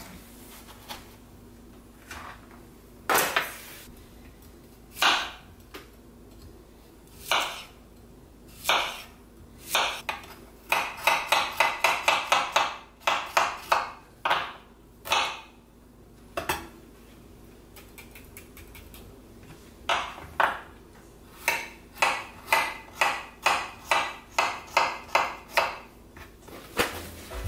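Kitchen knife chopping okra on a cutting board: a few separate knocks, then quick runs of short chops, about four a second near the middle and about two a second near the end, as the okra pods are trimmed before frying.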